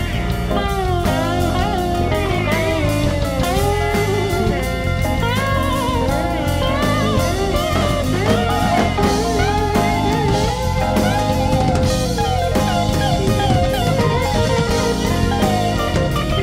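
Live rock band jamming: electric guitars play gliding, string-bent lead lines over bass and drum kit, with no singing.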